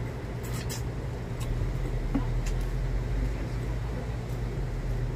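Steady low hum of city street traffic, with a few short, sharp clicks in the first half.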